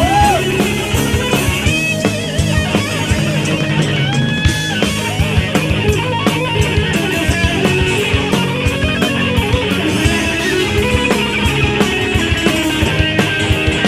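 Rock band playing an instrumental break with no singing: an electric guitar lead with bent, held notes over drums keeping a steady beat.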